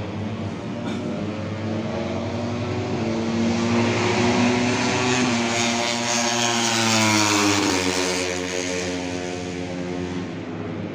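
Race car engine passing close by on the track: its note climbs in pitch as it approaches and accelerates, then drops sharply as it goes past, about three quarters of the way through.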